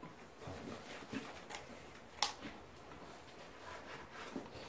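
Quiet eating at a table: a few short, sharp clicks of chopsticks and dishes over faint room tone, the clearest about two seconds in.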